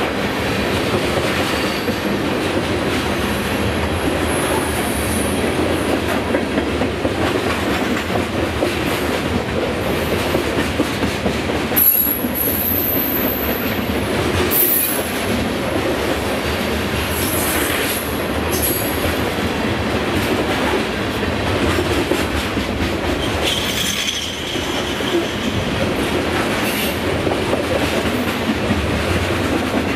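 Freight train cars (tank cars, then covered hoppers) rolling past close by: a steady rumble of steel wheels on rail, with short high-pitched wheel squeals at a few points.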